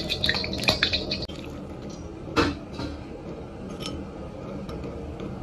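A metal ladle clinking and scraping in a steel wok of hot oil, with a faint sizzle, until an abrupt break. Then a metal spoon clinks against a glass bowl while it stirs chili powder and cumin salt in oil, with one sharp clink about two and a half seconds in.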